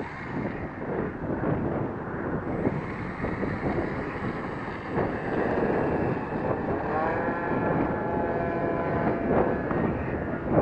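Gusting wind buffets the microphone while an electric RC plane motor and propeller run. About seven seconds in, the motor whine rises in pitch and holds.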